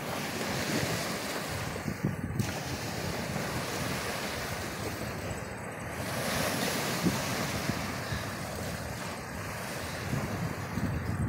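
Wind buffeting the microphone in uneven low gusts while riding, over the wash of surf breaking on a rocky lakeshore.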